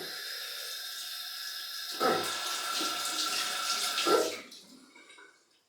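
Sink tap running, noisy, with a thin steady whistle over the rush of water. From about two seconds in, louder uneven splashing joins it, and the water stops a little after four seconds.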